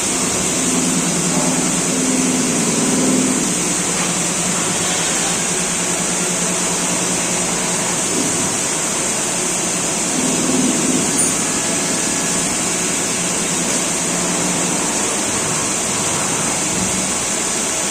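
Steady running hum of a Takang CNC lathe, with a constant high hiss over it, like fans and a pump running continuously.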